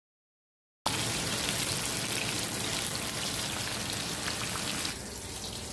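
Chicken pieces sizzling in hot oil in a frying pan. The sound starts suddenly about a second in and turns quieter and duller near the end.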